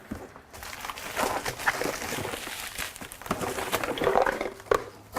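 Cardboard packaging being handled during unboxing: irregular rubbing and scraping with a few short squeaky scrapes.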